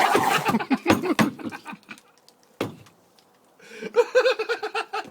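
People's voices laughing and exclaiming, broken by a quiet spell with a single sharp knock about two and a half seconds in, then more laughter.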